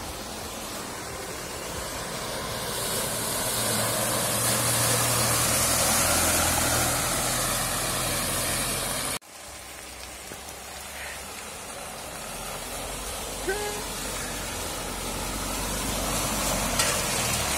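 Mahindra Bolero 4x4 working its engine under load as it drives through deep mud and puddles, its tyres churning and splashing. The sound breaks off abruptly about halfway through and then picks up again.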